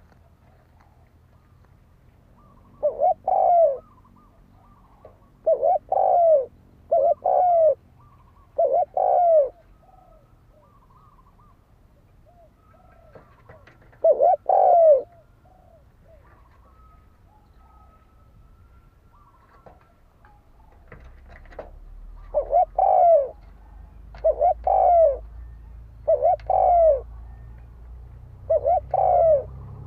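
Spotted dove cooing: repeated low, arching coos in short groups of two or three, with a lull in the middle. A low background rumble grows over the last third.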